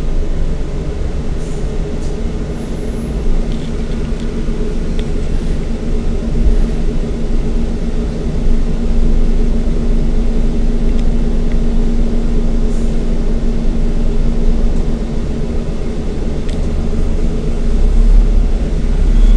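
Scania N94UB single-deck bus's diesel engine running, with low road rumble, heard from inside the passenger saloon. The engine note grows louder about halfway through.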